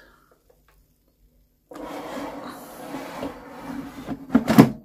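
Black+Decker air fryer's plastic basket drawer sliding into the fryer with a scraping rub for a couple of seconds, then shutting with a loud clunk near the end.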